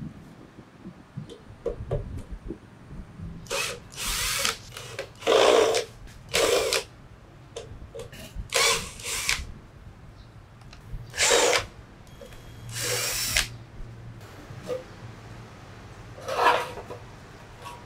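Cordless drill-driver running in about seven short bursts, backing out the screws that hold the sheet-metal cover on a mini welding machine.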